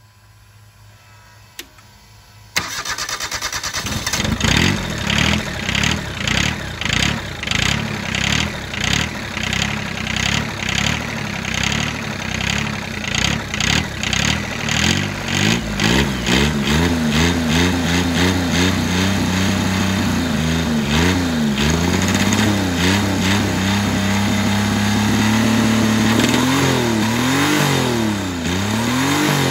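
A twin-turbo diesel engine is started. After a faint hum, it cranks and stumbles in a pulsing rhythm of about two beats a second for roughly ten seconds. It then catches and runs, revved up and down several times with a steady stretch in between.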